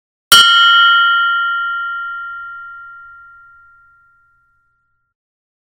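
A mindfulness meditation bell struck once, a high ring that fades away over about four seconds.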